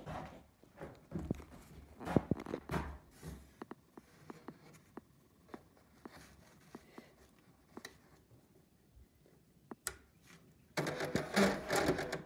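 Epson receipt printer printing a scale ticket in one dense burst of about a second and a half near the end. Before it come scattered clicks and knocks.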